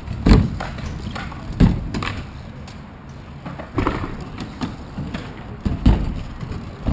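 BMX bike knocking and thudding on a concrete skatepark surface several times, with tyre rolling noise in between.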